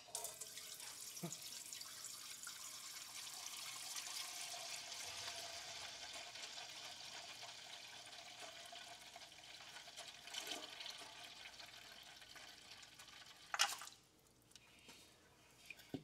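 Engine oil draining in a steady stream from the oil pan drain hole into a catch basin, gradually getting quieter. A sharp knock comes near the end, after which the pouring stops.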